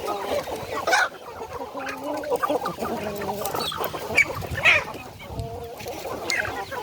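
A flock of Peruvidai native chickens clucking, with many short calls overlapping and a few higher, sharper calls about midway.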